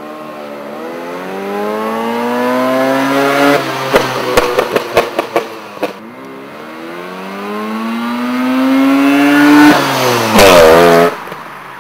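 Mazda RX-7's rotary engine revving hard as the car accelerates, its pitch climbing, then a rapid string of about eight sharp exhaust backfire pops about four seconds in. It pulls again with rising pitch and passes close by, loudest about ten seconds in, the pitch falling as it goes past.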